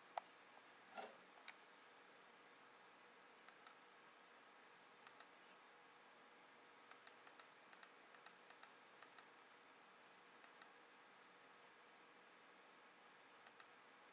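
Computer mouse button clicking against near-silent room tone. Each click is a sharp press-and-release pair, coming in short groups with a quicker run of clicks in the middle. There is a soft rustle about a second in.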